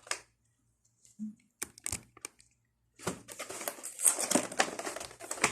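Packaging being handled: a few sharp clicks about a second and a half in, then from about three seconds a dense run of rustling, crinkling and small clicks as the free item is unwrapped.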